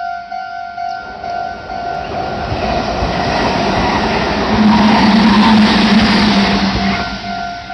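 A Meitetsu Nagoya Main Line train passes over the level crossing. Its noise builds from about a second in, is loudest around the middle with a low hum, and fades near the end. The crossing's warning bell keeps ringing in quick repeated dings throughout, partly drowned by the train.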